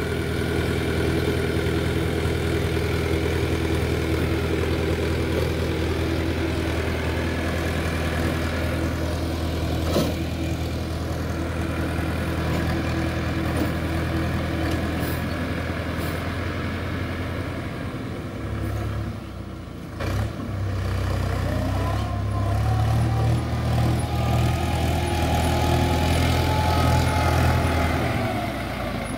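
Force Balwan tractor's diesel engine running steadily under load while it drives a rotary tiller through the soil. The sound dips briefly about two-thirds of the way in, then grows louder as the tractor comes closer, with a whine rising and falling over the last several seconds.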